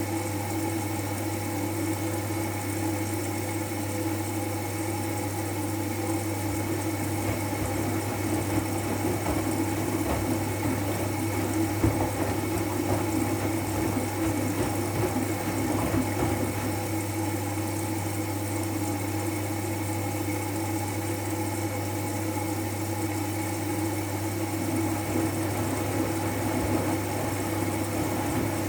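Siemens i-Dos washing machine running a wool/delicate program: a steady motor and pump hum, with faint irregular knocks and water sounds for a while in the middle.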